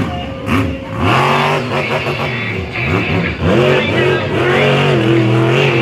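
Monster truck's supercharged V8 engine revving hard, its pitch rising and falling several times as the truck throttles across the dirt, then settling into a steady high drone near the end.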